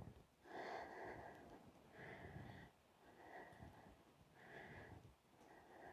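Faint breathing through the nose, about five soft breaths evenly spaced a little over a second apart, from a person holding a slow single-leg balance exercise.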